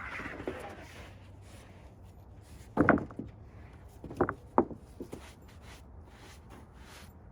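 Freshly sawn poplar boards being handled, wood knocking on wood: one loud knock about three seconds in, then a few lighter ones a second or two later.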